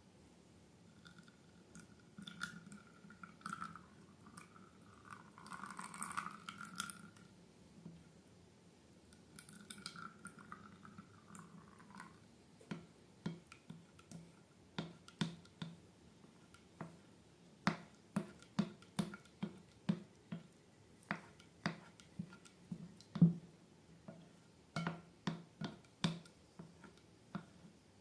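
Slime being worked by hand: rubbing and handling noise for about the first twelve seconds, then a steady run of small wet pops and clicks, about one or two a second.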